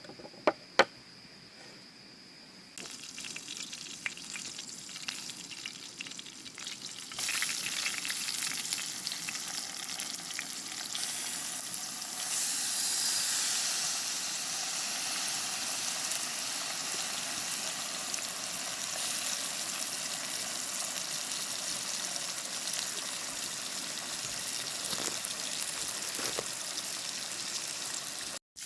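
Food sizzling in a hot frying pan. The hiss starts faintly, grows louder about seven seconds in and then keeps up steadily. Two sharp clicks come near the start.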